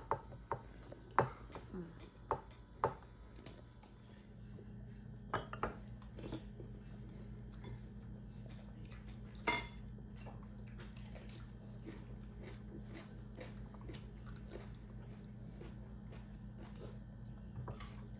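Spoons and cutlery clinking against bowls and dishes during a meal, in scattered single clinks with the loudest about halfway through. A steady low hum sets in a few seconds in.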